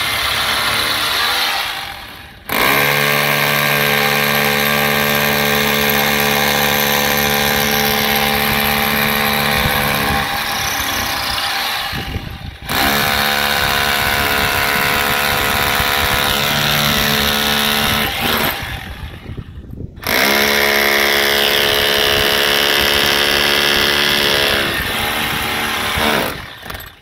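Corded electric drill boring into a face-brick wall, drilling the holes for a satellite dish wall bracket. The motor runs in four long bursts with short stops between them, keeping a steady whine while it runs.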